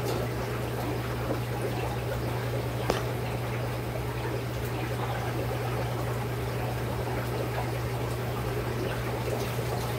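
Aquarium water trickling and splashing steadily over a constant low hum, with a single click about three seconds in.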